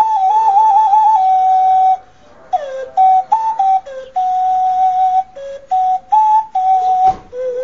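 Mexican clay skull whistle being blown: a clear, flute-like pitched tone that trills and holds at first. After about two seconds it breaks into a run of short notes stepping between higher and lower pitches, with a brief pop near the end before a lower held note.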